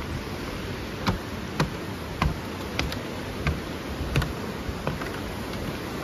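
Footsteps on wooden stairs: about seven knocks a little over half a second apart, over the steady rush of a waterfall.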